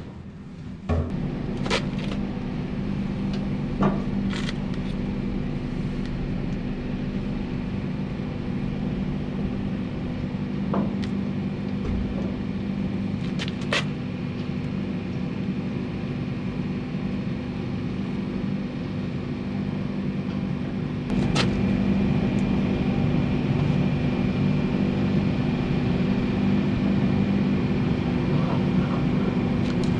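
A motor running steadily with a low hum, a few sharp clicks over it, getting louder about twenty seconds in.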